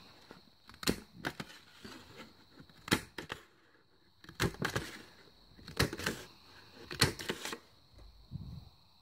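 Irregular sharp clicks and clacks, about eight in all, of a handheld plastic craft paper punch being pressed and handled, along with sheets of coloured paper being moved; the punch had just jammed.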